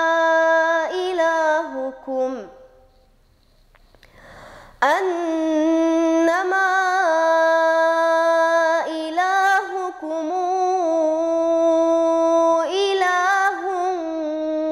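A girl's voice reciting the Quran in melodic tajwid style, holding long, steady drawn-out notes with ornamented turns. About two seconds in she breaks off for a pause of about two seconds. She then resumes on a long sustained line.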